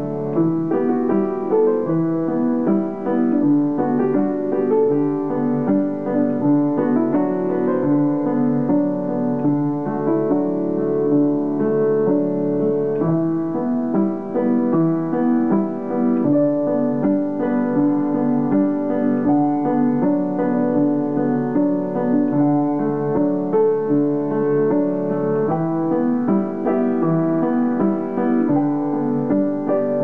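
Solo piano music, a continuous flow of notes.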